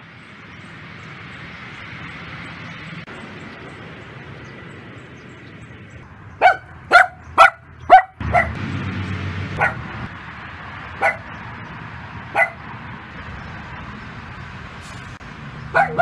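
Small dog barking: four loud, sharp barks in quick succession about six seconds in, then single barks every second or so, with more barks near the end. A steady high hiss runs underneath, and a low rumble comes in from about halfway.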